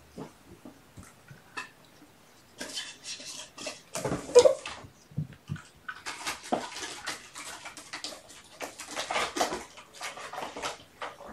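Kittens scrabbling and playing in their pen: a run of scratching, rustling and light clattering, with a sharper knock about four seconds in.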